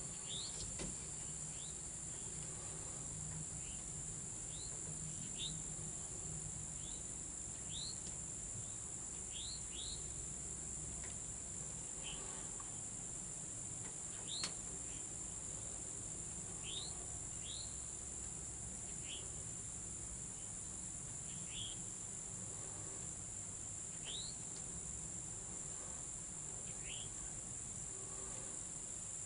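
Steady high-pitched drone of an insect chorus, with a bird's short high chirps every second or two and a single sharp click about halfway through.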